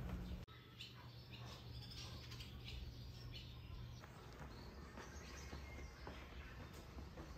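Quiet outdoor ambience with faint, scattered bird chirps over a low steady background rumble.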